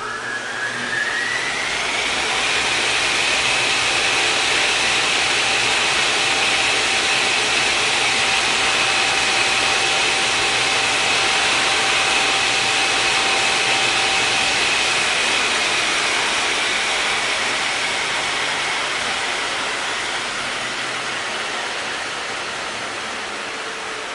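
Turbine spinning up and running: a whine finishes rising in pitch over the first couple of seconds, then holds steady over a loud rushing hiss, with a second lower steady tone that drops out about two-thirds through. The sound eases off gradually near the end.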